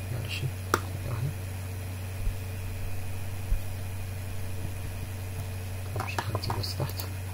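Steady low background hum, with a faint click about a second in and a quick run of faint clicks near the end.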